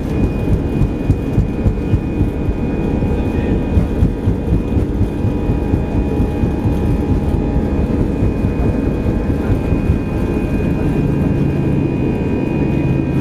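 Airbus A320 cabin noise during the takeoff roll: jet engines at takeoff power with a steady whine over a heavy rumble, and the wheels jolting along the runway. The jolting smooths out about ten seconds in as the aircraft rotates for liftoff.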